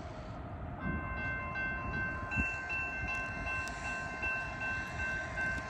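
Grade-crossing warning bell ringing in steady, high, slightly broken tones, starting about a second in, over a low rumble of an approaching freight train.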